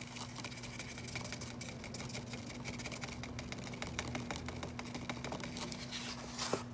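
Stiff kraft-paper firecracker casing crinkling and tapping as it is squeezed and shaken to pour out its flash powder: a fast, uneven run of light clicks and rustles over a steady low hum.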